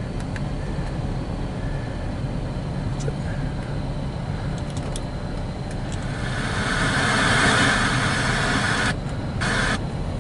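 Car radio hissing with static as it is tuned through FM stations, from about six seconds in, cutting out abruptly twice near the end; reception is poor. Under it runs the low steady hum of the idling car and its air-conditioning blower, with a few faint clicks of dash buttons in the first half.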